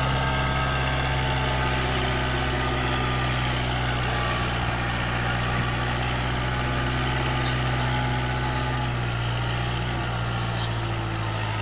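Kubota MU4501 tractor's four-cylinder diesel engine running steadily under load, pulling a two-bottom mouldboard plough through the soil.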